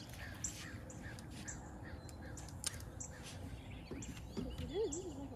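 Birds calling in the background, a scattering of short chirps and calls.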